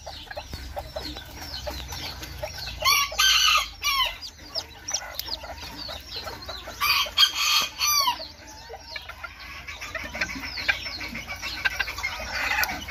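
Newly hatched chick peeping over and over in short, falling peeps. Twice, about three and about seven seconds in, an adult chicken lets out a louder, harsher call about a second long.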